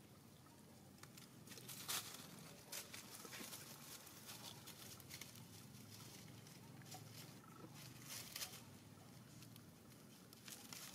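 Faint rustling of dry leaves with a few short crackles, as monkeys move and handle things on the leaf-strewn ground; otherwise near silence.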